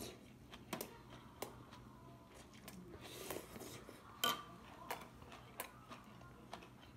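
Light clicks and clinks of metal chopsticks and a spoon against dishes and a soup pot during a meal, scattered through, with the sharpest clink about four seconds in.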